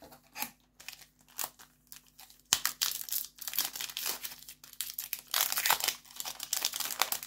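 Foil Yu-Gi-Oh! booster pack being torn open by hand, its wrapper crinkling. Sparse rustles at first, then a sharp crack about two and a half seconds in and dense crinkling and tearing.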